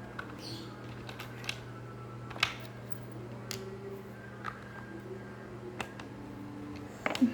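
Scattered light clicks and taps of small plastic play-dough tools and toys being handled on a tabletop, the sharpest about two and a half seconds in and a quick cluster near the end, over a steady low hum.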